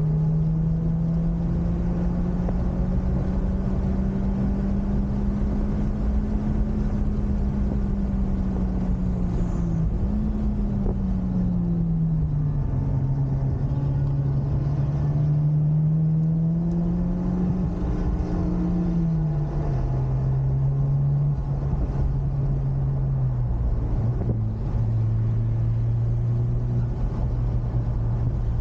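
Honda Civic Type R FK8's turbocharged 2.0-litre four-cylinder engine running under way. Its pitch rises and falls and drops in steps about ten, twelve, twenty and twenty-three seconds in, over steady road and tyre rumble.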